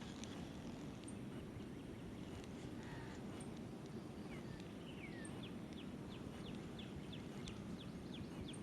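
Faint bird calls: a couple of downward-sliding chirps about halfway through, then a series of short falling notes about twice a second, over a steady low background hum.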